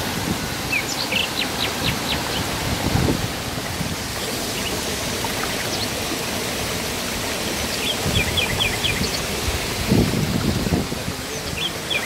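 Steady rush of strongly flowing water, with a bird calling in quick runs of about five high chirps, twice, and a few low thumps.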